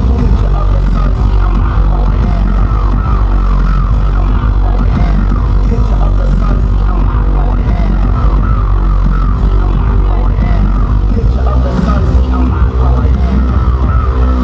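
Loud live electronic bass music over a concert sound system: heavy, sustained sub-bass notes that step in pitch under a busy synth line.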